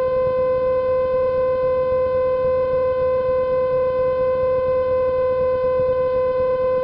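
A loud, steady horn-like tone at one fixed pitch sounds without a break over the low drone of the Cessna 150's engine in the cockpit.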